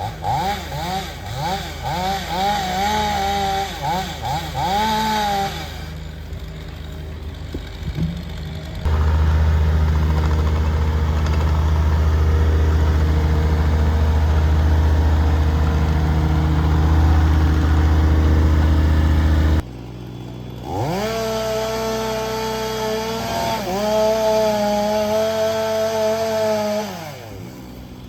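Gas chainsaw revved up and down in quick blips for about five seconds. Later comes a long stretch of loud, low rumbling noise with no clear pitch. Near the end the chainsaw is throttled up, holds high with a brief dip, and winds back down.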